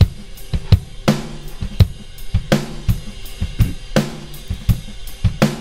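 A recorded rock drum kit playing back a steady beat of kick, snare and hi-hats. The kick and snare are layered with sampled drums from Native Instruments Battery, triggered by MIDI notes and moved 11 milliseconds earlier, which should put them in time with the original hits without flamming.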